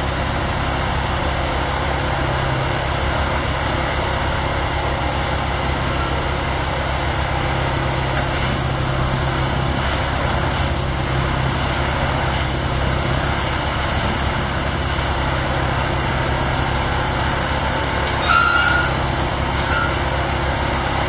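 Plasser & Theurer Unimat 4S track tamping machine running, its diesel engine a steady drone. A short, louder higher-pitched sound cuts in about eighteen seconds in.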